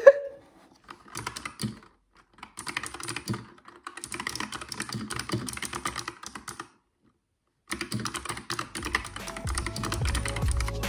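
Fast typing on a laptop keyboard, in several spurts of rapid key clicks with short pauses between. Background music comes in near the end.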